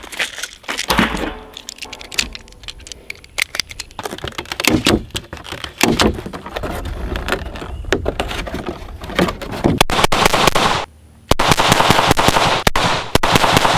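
Sharp clicks and snaps of hands-on range work, cartridges being pressed into a pistol magazine and a staple gun fixing a cardboard target, then pistol shots fired in quick strings over the last few seconds.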